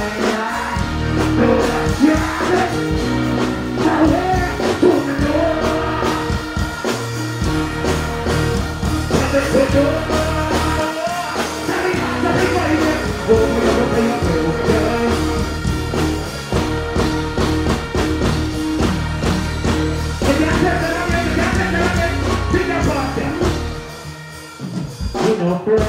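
Dancehall artist deejaying and singing live into a handheld microphone over a loud backing track with a steady beat, through a stage sound system. The music drops in loudness briefly near the end.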